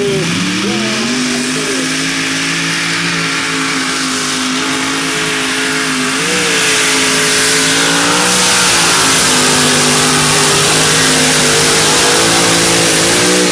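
Multi-engine modified pulling tractor launching and running at full throttle through a pull. The engine note sags as the load comes on, climbs and holds high and steady, wavers briefly about six seconds in and again about eight and a half seconds in, grows a little louder, then falls away at the very end as the throttle comes off.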